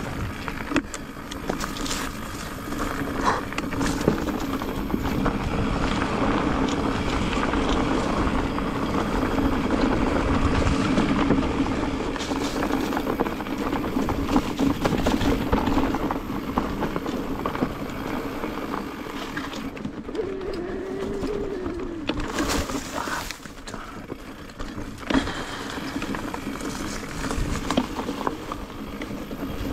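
Mountain bike ridden along a rough, narrow dirt trail: a steady rush of tyre and trail noise with scattered knocks and rattles as the bike goes over bumps.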